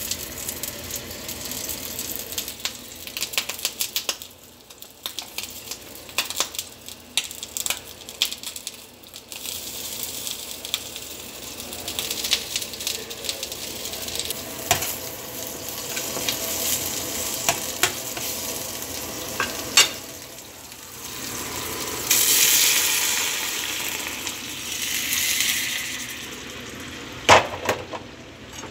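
Food sizzling in a hot pan, with frequent sharp clicks and knocks throughout. The sizzling grows louder for a few seconds about 22 seconds in, and there is one loud knock near the end.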